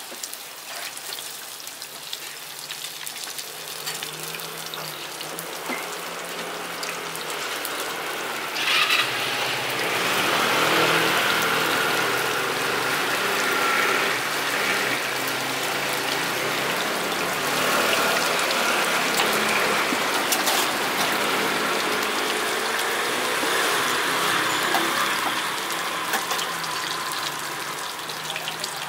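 Scallion bread dough deep-frying in a wide wok of hot oil: a steady hiss and crackle of bubbling oil, growing louder over the first ten or so seconds.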